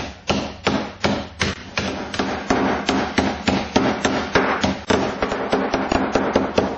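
Rolling pin bashing Nice biscuits inside a plastic bag, crushing them to fine crumbs: repeated sharp thuds, about three a second.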